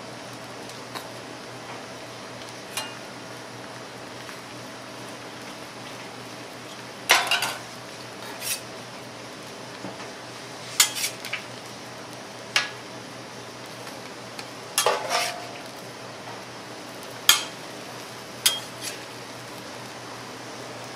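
Metal kitchen utensils clanking against pans and a cooking surface, about a dozen sharp, irregular knocks and clinks, some ringing briefly, over a steady background hiss.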